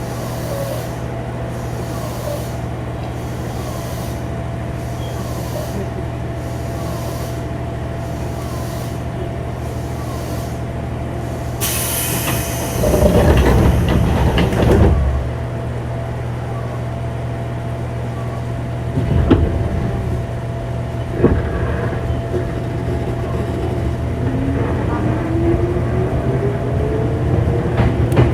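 Inside a JR 205-series electric train's motor car, with its inner-fan traction motors: a steady electrical hum, then a loud burst of air hissing about twelve seconds in with heavy rumbling, two sharp knocks, and near the end a rising whine from the traction motors as the train starts to pull away.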